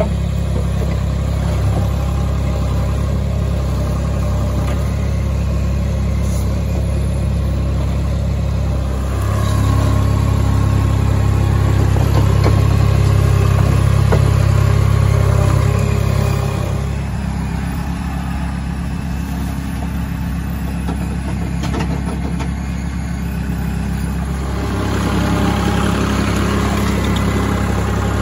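Vermeer tracked mini skid steer's engine running steadily. It gets louder about a third of the way in, drops lower through the middle, and picks up again near the end.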